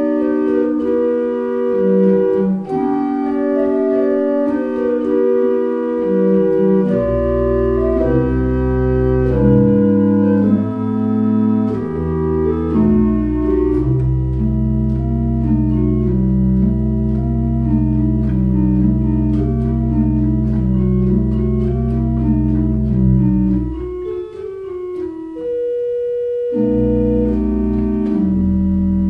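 Organ music: slow, held chords changing every second or two, with a low bass line coming in about seven seconds in and dropping out for a moment near the end.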